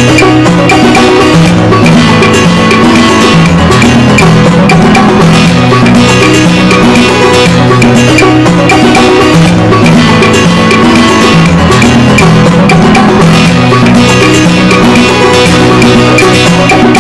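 Background music with a steady percussive beat and a stepping bass line.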